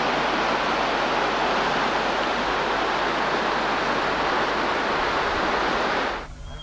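Rushing water of a fast, shallow river pouring over stony riffles: a loud, steady hiss that cuts off just before the end.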